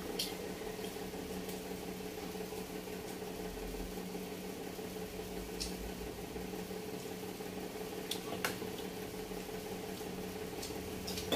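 Quiet eating sounds, chewing and a few short sharp clicks of mouth and tableware, over a steady low appliance hum.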